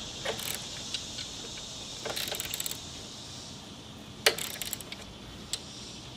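Wrench and bolt clicking and clinking as the bolt is strained to break it off: a quick run of small clicks about two seconds in and a single sharp metallic click a little after four seconds.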